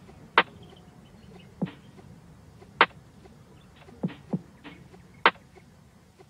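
Hand claps in a slow beat: about six sharp claps, roughly one a second, with a quick pair of claps about two-thirds of the way through.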